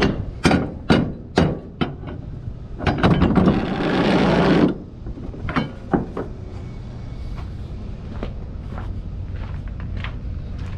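Footsteps crunching on gravel, about two a second at first, over a steady low rumble. A louder rustling scrape runs for about two seconds, from about three seconds in, and is followed by fainter, scattered steps.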